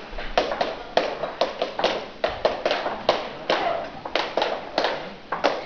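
Flamenco palmas: sharp hand claps in an uneven, quick rhythm, about three or four a second, with a short echo after each.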